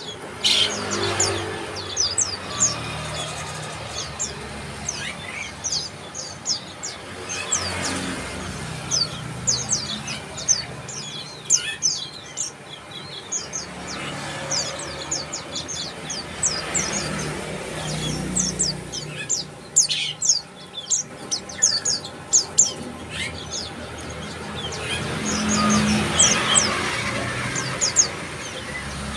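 Bar-winged prinias calling: rapid runs of short, high chirps in bursts, over a low steady background noise.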